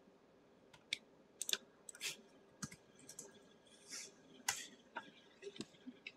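Typing on a computer keyboard: irregular, sparse keystroke clicks with short pauses between them.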